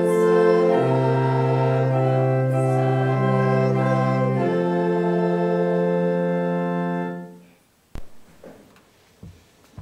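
Organ playing the closing chords of a hymn accompaniment, a few sustained chord changes held and then dying away about seven seconds in. A single sharp click follows shortly after.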